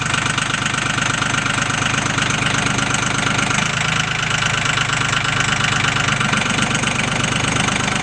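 Engine running steadily with a rapid, even knocking pulse, its pitch shifting slightly about three and a half seconds in.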